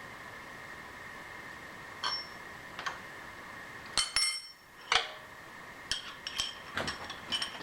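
Steel parts and tools clinking and knocking together, a string of sharp ringing metallic clinks with the loudest two about four and five seconds in, over a steady high-pitched hum.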